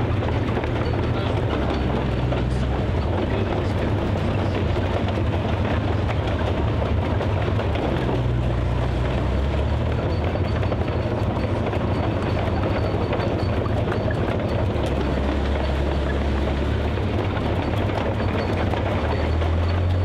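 Tiger II tank's Maybach HL 230 V-12 petrol engine running as the tank drives slowly on its tracks, a deep, steady engine sound with a dense noisy layer above it.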